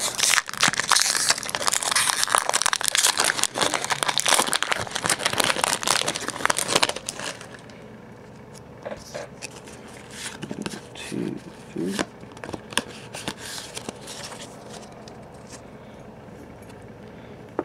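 Pokémon booster pack's foil wrapper crinkling and tearing open for about seven seconds, then quieter scattered clicks and rustles of the trading cards being handled.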